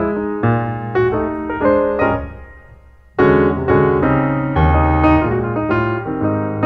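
Piano music: struck chords and melody notes that die away to a pause about two seconds in, then come back in loudly a second later.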